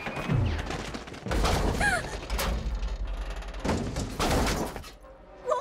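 Cartoon action sound effects: a series of heavy thuds and crashes over a low rumble, with a brief lull near the end.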